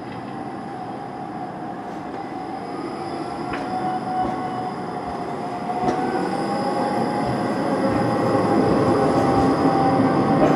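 Škoda ForCity low-floor tram running slowly around a tight curve toward the listener and passing close by, its rumble growing steadily louder, with a steady whine that steps up slightly in pitch about six seconds in.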